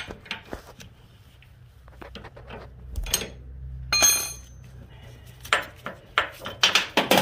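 Steel wrench clinking and clicking on a go-kart tie rod's jam nut as the nut is worked loose, with one ringing metal clank about four seconds in and quicker clicks near the end.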